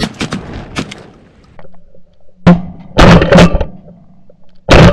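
Several shotgun shots: the first about halfway in, two more in quick succession, and another near the end, each a sharp blast that dies away quickly.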